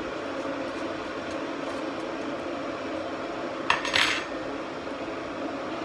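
A fork clinks and scrapes against a ceramic plate while nudging potato wedges: a few sharp clicks and a short clatter about four seconds in. A steady hum runs underneath.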